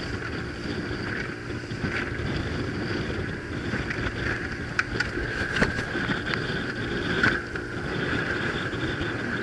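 Small open motorboat running at speed through rough chop, with steady engine and water noise and wind on the microphone. A few sharp slaps come about five to seven seconds in, as the hull hits waves and spray comes over the bow.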